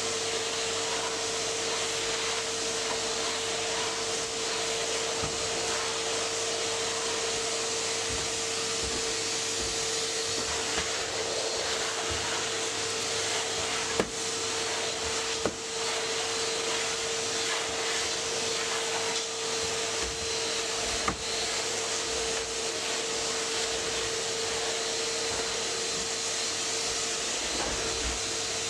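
Vacuum cleaner running steadily, a constant whine over the rush of air. Three sharp knocks come through in the middle part.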